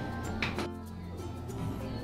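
Background music with a steady low bass.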